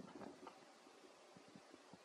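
Near silence: a faint steady hiss with a few faint ticks, a little louder for a moment at the start.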